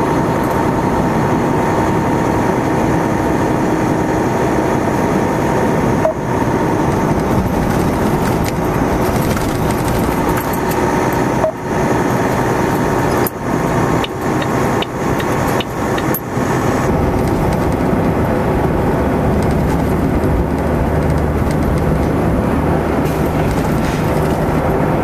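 Heavy truck's diesel engine and road noise droning steadily inside the cab while driving, with a few short clicks or breaks about halfway through.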